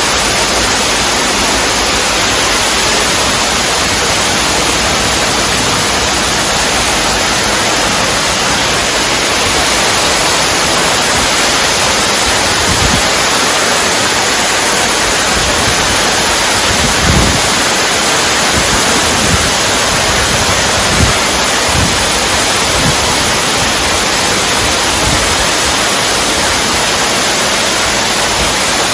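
Steady, loud rush of an underground waterfall dropping about 29 m inside a limestone cave, with a few brief low thumps in the second half.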